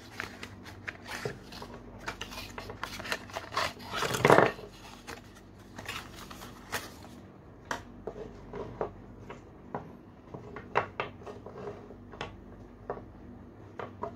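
Handling noise from a cardboard box and its packaging being opened, with a louder noise about four seconds in, then small plastic bike-light brackets and parts clicking and tapping as they are set down on a wooden table.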